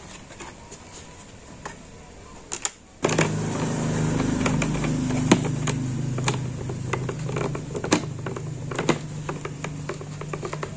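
A screwdriver working a screw in the hard plastic base of a Philips blender, with a run of sharp clicks and taps. About three seconds in, a steady low hum starts suddenly and carries on under the clicks.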